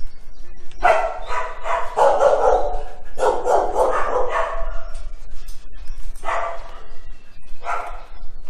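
Dogs at an animal shelter barking in four spells, the barks running together.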